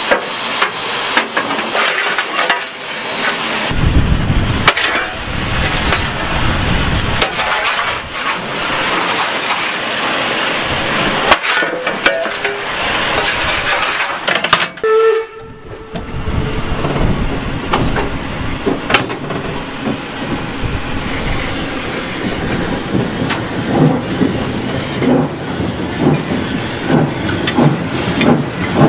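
Cab sound of a DR class 50 steam locomotive: a steady roar and hiss of the coal fire and steam, with heavy storm wind. Toward the end, regular exhaust chuffs of about two a second begin as the locomotive starts to move.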